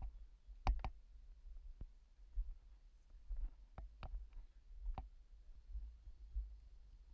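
A few scattered sharp clicks and knocks, two in quick succession about a second in and several more spread through the middle, over a faint low rumble of handling noise.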